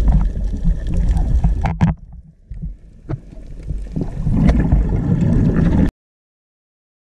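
Water noise heard through an underwater camera: a low, muffled rumble with gurgling and scattered clicks. It drops away for about a second in the middle, comes back up, and cuts off abruptly near the end.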